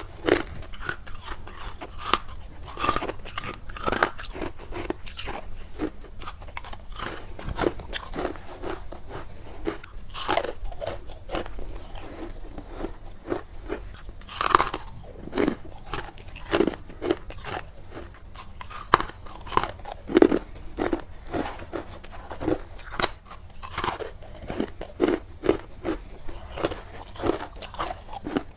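Close-up crunching of someone biting into and chewing edges of freezer frost, many irregular crisp crunches one after another.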